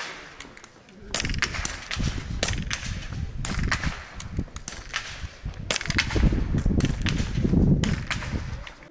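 Small-bore .22 biathlon rifles firing on a shooting range: many sharp shots in quick, irregular succession, as from several shooters at once, over a low rumbling noise.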